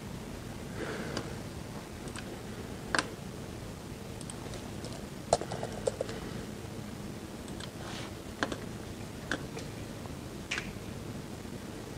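Scattered clicks from a laptop keyboard and mouse: about eight irregular taps, the sharpest about 3 and 5.5 seconds in, over a steady background hum.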